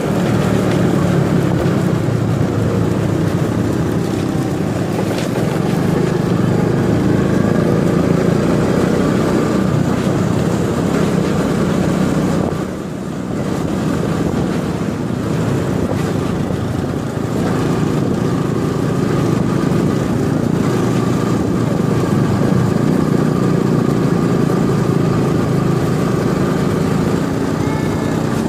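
Small motor scooter running steadily while being ridden, an even engine drone with road noise, dipping briefly about thirteen seconds in.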